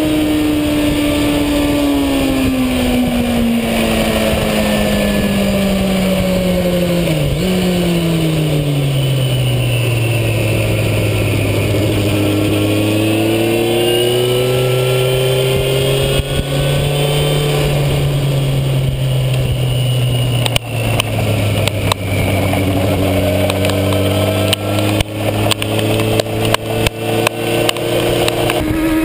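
Onboard race motorcycle engine slowing down, its pitch falling steadily with a gear shift about seven seconds in, then running at low revs. In the second half, crackling clicks and dips in the sound come with heavy rain hitting the bike, and the revs pick up again near the end.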